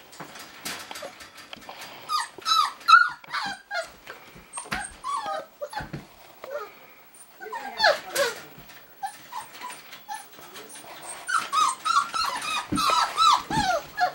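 Puppy giving many short high-pitched whines and yips in bursts, with some growly notes, while it bites and tugs at a plush toy.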